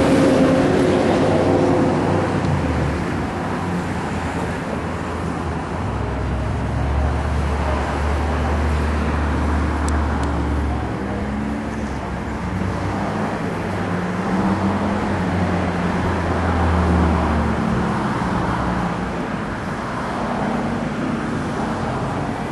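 Motor vehicle engines running, a low steady hum that swells for several seconds twice, starting about six and about thirteen seconds in.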